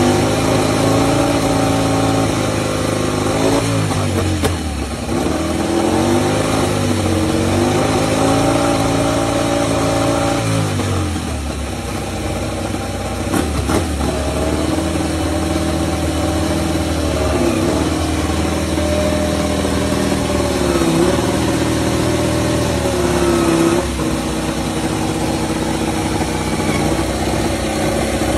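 Ducati Desmosedici MotoGP bike's V4 engine running on its rear stand, revved again and again in short blips so the pitch keeps rising and falling over the idle.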